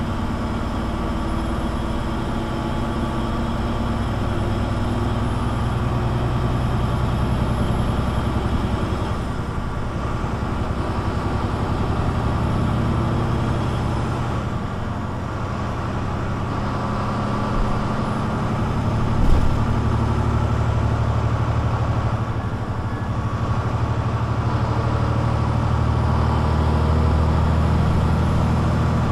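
Mercedes-Benz Citaro C2 G articulated bus's engine running, its note rising and falling in level every few seconds, with a short knock about nineteen seconds in.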